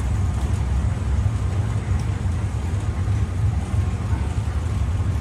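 Sumitomo Heavy Industries moving walkway with a rubber-belt tread running while ridden: a steady low rumble.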